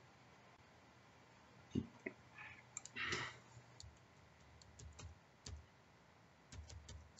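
Faint computer keyboard typing and mouse clicks: a few scattered keystrokes starting about two seconds in, with a short soft rustle about three seconds in.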